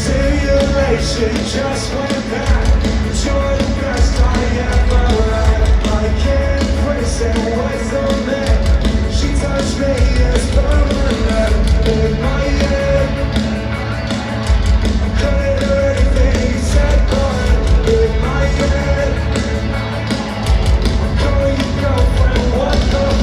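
Live rock band playing a loud pop-punk song, with a singer over drums, electric guitar and heavy bass.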